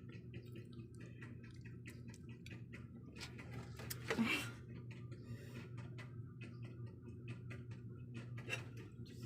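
Kitchen utensils clicking and tapping lightly and irregularly over a steady low hum, with one louder clatter about four seconds in.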